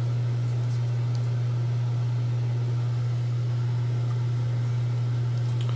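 A steady low hum over faint hiss, unchanging throughout, with a few faint light clicks.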